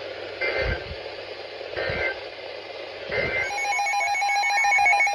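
Three short Emergency Alert System end-of-message data bursts over weather-radio static hiss, about 1.3 seconds apart, closing the warning just read. About three and a half seconds in, a loud, rapidly pulsing electronic alert tone starts.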